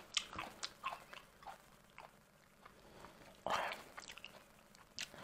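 Close-up chewing of rowan berries: faint, irregular small crunches and mouth clicks, with a short breathy rush about three and a half seconds in.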